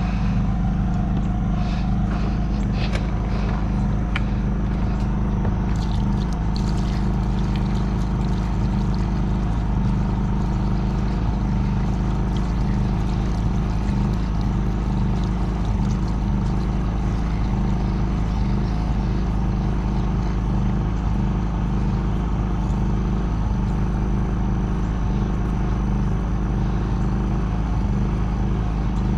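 John Deere 450C crawler dozer's diesel engine running steadily at a constant speed, with a few light clicks and clanks in the first several seconds.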